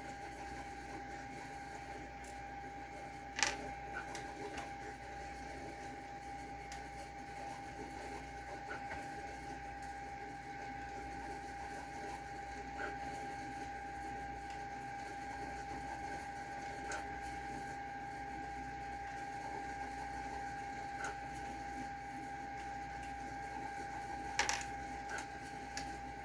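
Light clicks and knocks of metal bolts and a hex key being worked loose and handled, the sharpest about three seconds in and another near the end, over a faint steady whine of one pitch.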